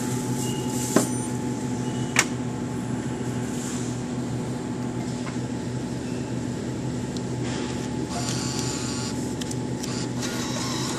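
Steady electrical and ventilation hum of a shop interior, with two sharp clicks about one and two seconds in and some faint rustling near the end.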